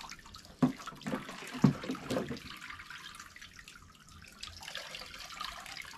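Water poured from a plastic bowl over dreadlocks and splashing into a basin as the locs are rinsed, with two louder splashes about a second apart near the start.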